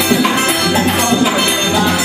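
Forró pé de serra band playing a baião: accordion over a steady percussion beat.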